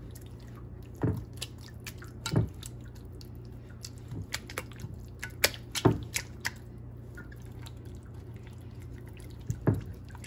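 Wet squelches and smacks of hands rubbing a seasoning paste into a whole raw fish's scored flesh, in irregular short, sharp wet clicks, over a faint steady low hum.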